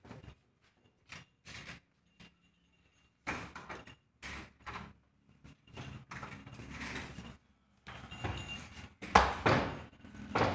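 Metal chain leash clinking and rattling in irregular bursts as a German Shepherd puppy is handled and moves about, loudest near the end.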